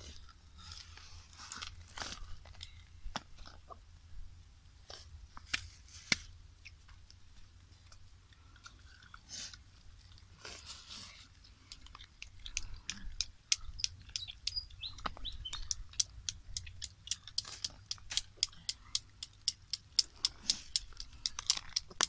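Close-up eating and snail-picking sounds: chewing and crunching with sharp clicks of snail shells being worked open. The clicks are scattered at first, then about halfway through become a quick run of about three a second.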